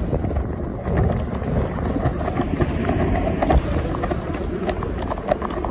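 Running footsteps on a paved platform, a quick run of sharp steps over a steady low rumble.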